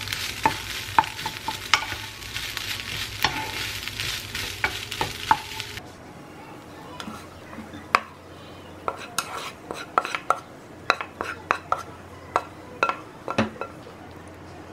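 Fried rice sizzling in a frying pan while a spatula stirs it, knocking and scraping against the pan. About six seconds in the sizzle stops abruptly. Scattered sharp clicks and scrapes follow as the rice is spooned out of the pan onto a plate.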